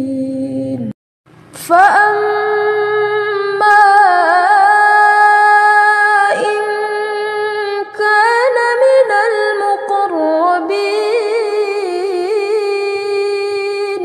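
A woman's voice reciting the Quran in melodic murattal style, holding long drawn-out notes with ornamented pitch bends; a short pause about a second in, then the recitation resumes.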